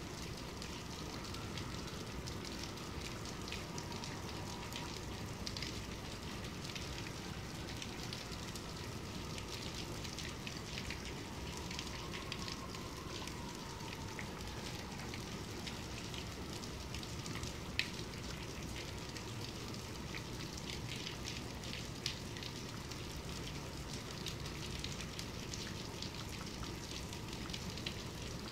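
Steady medium-to-heavy rainfall: a dense, even patter of drops, with a couple of louder single drop hits partway through.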